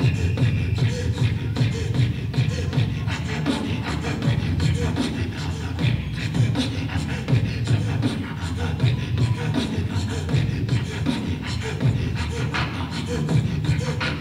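Inuit throat singing (katajjaq) and throat boxing performed together: a woman's rhythmic throat-singing pulses interlocked with a man's beatboxing, a fast, unbroken run of deep breathy vocal pulses cut with sharp percussive clicks.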